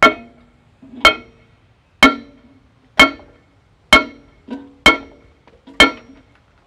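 Hammer blows on steel driving a part of an excavator's final drive into place: seven strikes about a second apart, each with a short metallic ring.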